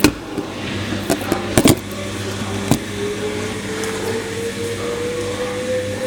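LG washing machine speeding up into its spin: a motor whine that rises slowly and steadily in pitch over a low steady hum. A few sharp knocks come in the first three seconds.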